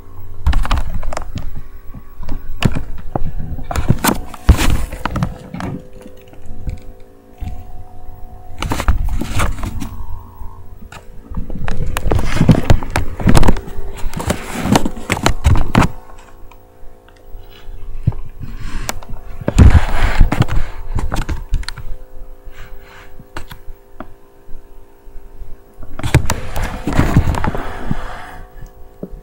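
Window blinds rattling and clattering in irregular bursts as a cat moves behind them, with a steady hum underneath.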